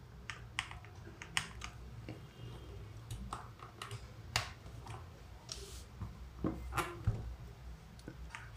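Scattered, irregular key presses on a mechanical keyboard fitted with low XDA-profile keycaps: about fifteen quiet, sharp clicks spread over the eight seconds. They are likely presses cycling the keyboard's LED backlight modes.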